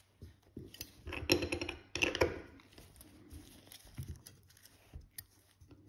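Small clicks and brief rustles of tweezers and watch parts being handled on the bench. The handling is loudest about one and two seconds in, with a sharp tick near the end.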